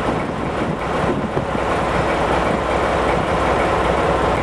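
Diesel shunting locomotive standing at the platform with its engine idling steadily, a low, even rumble.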